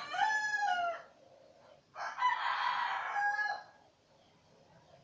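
A rooster crowing twice: one crow tails off with a falling pitch about a second in, and a second, harsher crow runs from about two seconds in to nearly four.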